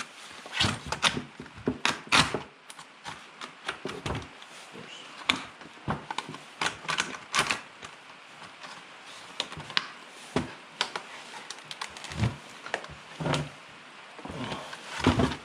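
Irregular clicks, taps and knocks as the parts and packaging of a new chainsaw are handled during unboxing.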